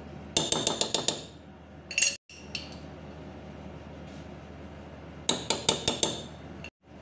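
A metal spoon tapping rapidly against the rim of an aluminium cooking pot to knock off ginger-garlic paste: two bursts of quick clinks about a second long, with a shorter one about two seconds in.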